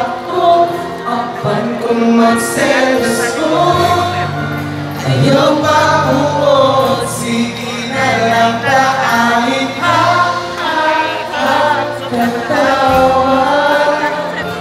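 Several people singing along to a song, the nearest voices loud and close; steady low bass notes come in about four seconds in.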